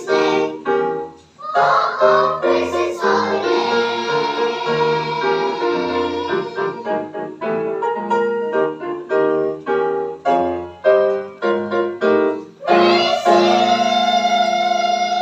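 Children's choir singing a hymn with piano accompaniment, the voices holding a long final chord from about 13 seconds in.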